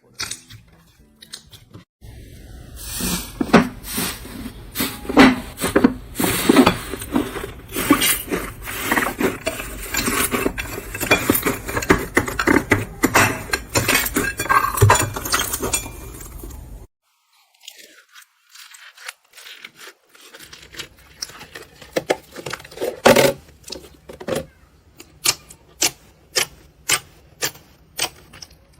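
Slime being squeezed and pressed with the hands, giving dense crackling and popping clicks. After a short break, a second batch gives sparser pops that settle into an even rhythm of about two a second near the end.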